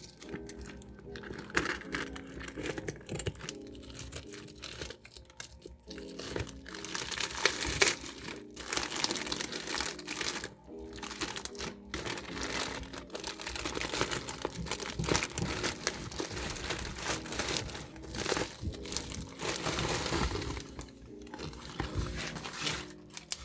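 Keyboard packaging being unboxed by hand: plastic wrapping crinkling and rustling in irregular bursts, over soft background music.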